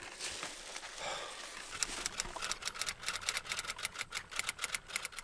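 Water running from a shower, with rapid irregular clicking, several clicks a second, starting about two seconds in.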